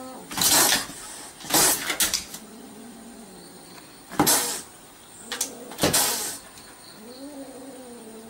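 A cat behind a car window hisses several times in short noisy bursts at a dog pawing at the outside of the car door. It lets out low, wavering growl-yowls around the middle and again near the end, with a few bumps against the door.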